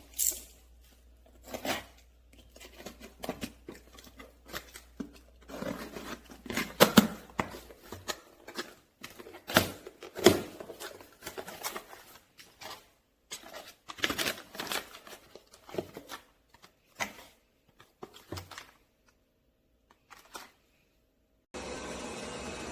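Hands handling packaging, or the cable itself, with irregular clicks, rustles and short scraping or tearing sounds, as in unboxing a small product. Near the end a steady hiss starts.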